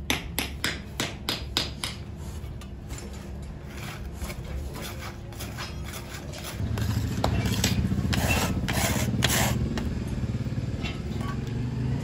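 Moulding sand scraping and rubbing as a lattice pattern is pressed and bedded into a sand mould by foot and by hand, with a quick series of sharp taps in the first two seconds. About six and a half seconds in, a low steady engine-like drone starts and stays louder.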